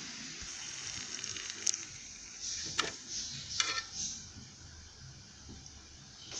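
Liquid nitrogen sizzling and hissing as it boils off in a metal tin around a frozen plastic miniature. Three sharp clicks come near the middle as the chilled model is handled.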